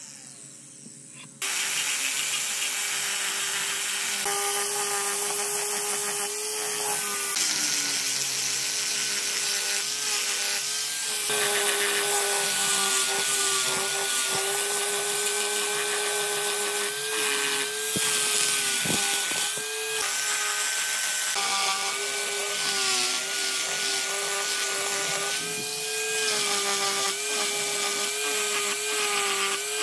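Electric die grinder with a sanding drum, starting about a second in, then running with a steady high whine as it grinds and sands the wood. Its pitch sags at times as the drum is pressed into the wood, and a few sharp ticks come near the middle.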